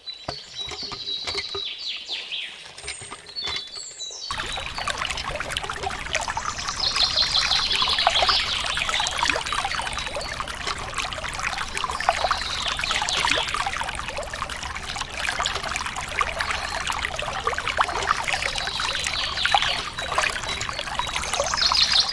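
Water pouring and trickling in a steady stream, starting about four seconds in, with bird chirps over it at the start and a few more times.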